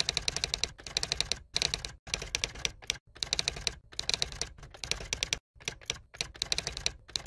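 Typing sound effect: rapid key clicks in short bursts, separated by brief pauses.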